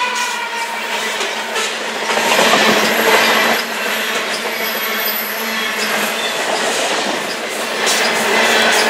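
Covered hopper cars of a potash unit train rolling past close by: a steady rumble of steel wheels on rail with repeated clicks over rail joints, louder about two to three seconds in and again near the end.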